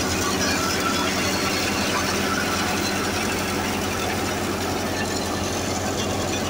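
Tractor-driven wheat thresher running at a steady speed: the Massey Ferguson 375 tractor's diesel engine holds a constant hum under the belt load, mixed with the steady noise of the spinning belts, pulleys and threshing drum.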